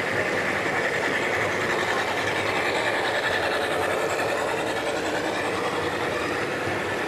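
G scale model train running close by: two model diesel locomotives leading a double-stack container train, with a steady running sound of motors and wheels on the track.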